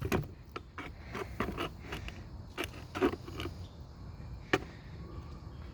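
Handling noise from parts being fitted together: a scatter of small clicks, knocks and scrapes, with one sharper click about four and a half seconds in.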